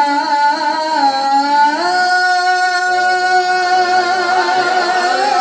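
A man singing a naat solo, with a few melodic turns and then one long drawn-out note held for about three seconds.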